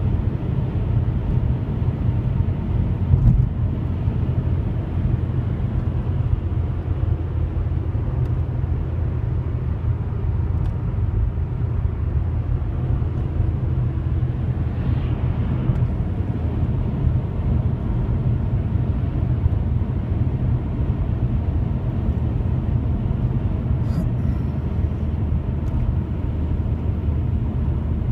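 Steady low rumbling drone, unbroken and even in loudness, of the kind posted as a mysterious 'strange trumpet sound' in the sky.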